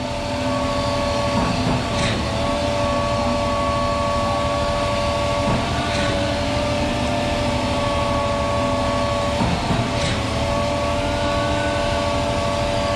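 Truck-mounted concrete pump running steadily under load, a constant whine over a low rumble, with a faint knock about every four seconds.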